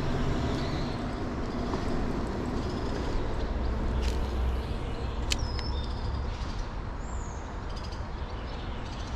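Steady low rumble of a vehicle passing overhead, swelling about four seconds in, with a few bird chirps above it.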